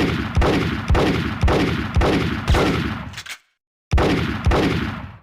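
Revolver gunshot sound effect: six shots about two a second, each with a long echoing tail. After a short pause, two more shots follow.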